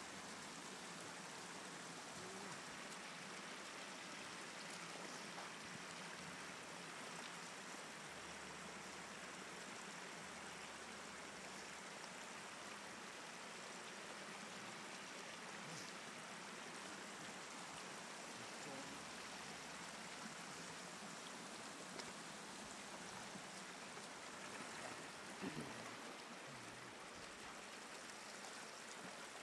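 Shallow floodwater running over the ground, a faint steady rush of flowing water. One short, slightly louder sound stands out near the end.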